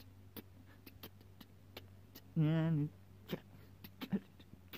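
A short, wavering, moan-like vocal sound about halfway through, lasting about half a second, over scattered faint clicks.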